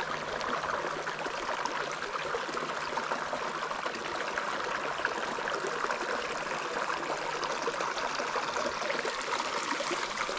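Creek water running and trickling steadily.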